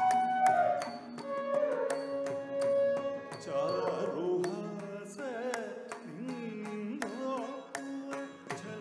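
Carnatic music from a live ensemble: a singing voice in gliding, ornamented phrases over regular drum strokes, with melodic instruments holding sustained notes.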